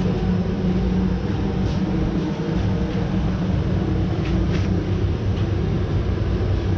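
Steady low droning hum of a running machine, unchanging throughout, with a few faint clicks about four to five seconds in.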